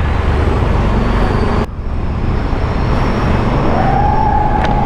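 Motorcycle engine running under way, with steady wind and road rush. A steady single tone comes in about a second before the end.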